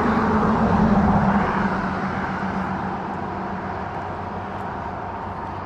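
A passing engine, a steady hum that is loudest about a second in and then slowly fades away.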